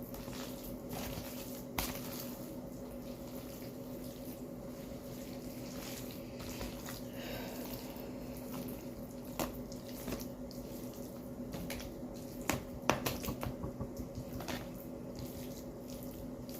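A spoon stirring a thick, wet casserole mixture of cream of chicken soup, broccoli and rice, with soft squelching and scattered clicks of the spoon against the dish, several close together near the end. A steady hum sits underneath.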